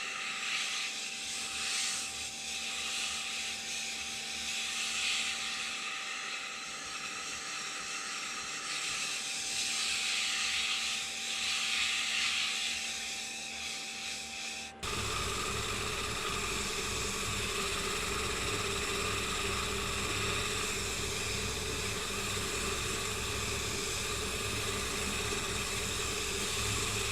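Soft rubbing of a hand working mineral oil into a freshly turned poplar lampshade, heard as gentle swells over a steady hiss. About halfway through the background changes abruptly to a steadier noise with a low hum.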